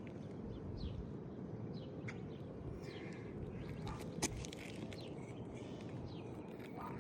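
Outdoor ambience: a steady low rumble with a few faint bird chirps and one sharp click a little over four seconds in.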